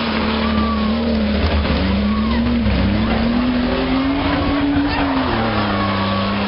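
Race car engine revving, its pitch rising and falling several times, over a steady wash of track noise, with tire squeal from cars sliding on the asphalt.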